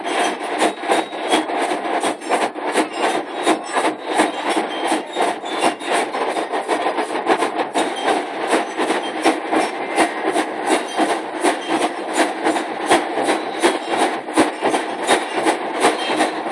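School marching band playing: drums beating a steady march rhythm of about two to three strokes a second, with bell lyres carrying the tune.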